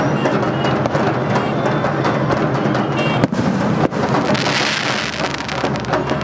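Music with drums and percussion, mixed with firecrackers going off: sharp bangs a little after three seconds and near four seconds, then a hissing rush for about half a second.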